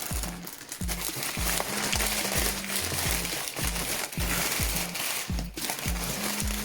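Background music with a steady beat of low thumps, over rustling and crinkling of packaging as a parcel is unpacked by hand; the rustling starts suddenly right at the start.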